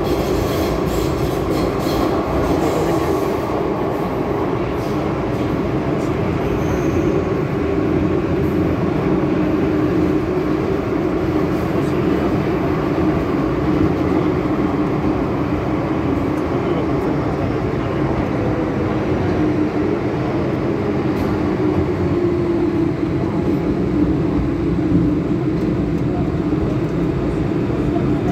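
Inside an MTR M-Train, a Metro-Cammell electric multiple unit, in motion: a steady rumble of wheels on rail and running gear, with a few faint clicks in the first few seconds.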